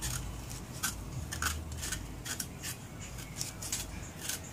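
Knife blade scraping the skin off a piece of fresh ginger root in short, quick, repeated strokes, about three a second.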